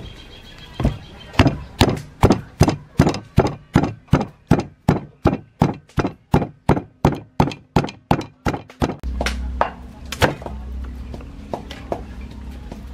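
Wooden pestle pounding sliced lemongrass, chilies and roots in a wooden mortar: an even run of strikes about three a second that stops about nine seconds in. A low steady hum and a couple of loose knocks follow.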